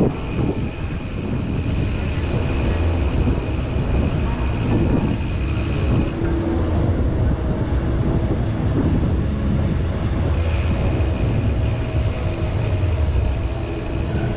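Wind buffeting the microphone of a GoPro Hero 8 on a moving bicycle: a loud, uneven low rumble of rushing air.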